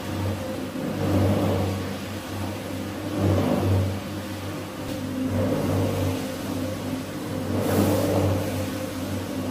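A motor-driven rug-cleaning machine running with a steady hum that swells and eases every second or two, as if it is loaded and unloaded with each pass over the wet rug.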